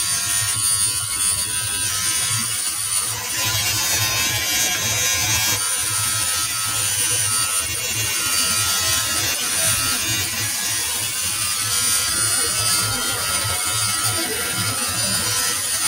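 Electric tattoo machine buzzing steadily as it drives the needle into skin, with a high whine that drops out briefly twice.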